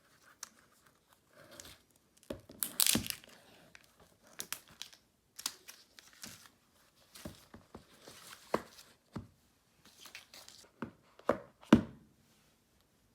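An iPhone 12 Pro Max box being unsealed and opened by hand: a long tearing rip about three seconds in, then scattered rustling and taps, with a few sharp knocks near the end as the lid and contents are handled.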